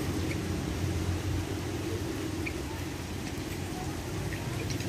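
Steady low rumble of street ambience, with a few faint ticks.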